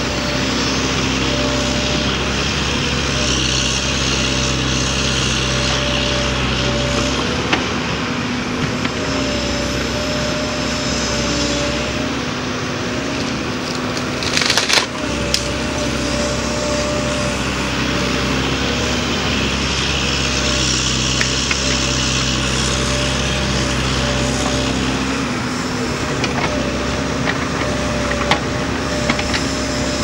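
Liebherr 900 Litronic excavator's diesel engine running steadily, its pitch shifting a few times as the boom works. A sharp crack of wood about halfway through, with a few lighter snaps near the end, as the tree-cutting head cuts through the brush.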